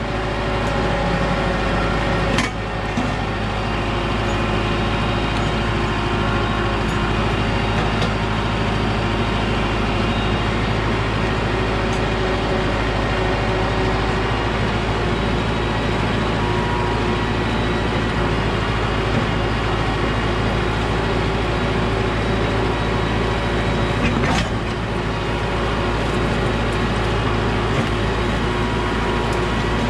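Diesel farm tractor engine running steadily under load while pulling a rear blade to cut a ditch. Two short knocks stand out, one about two seconds in and one about five seconds before the end.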